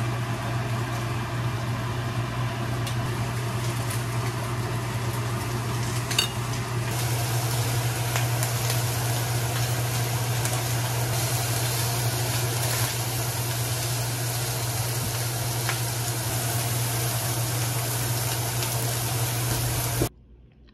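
Pork frying in a pan, sizzling steadily over a constant low hum; the sound stops abruptly near the end.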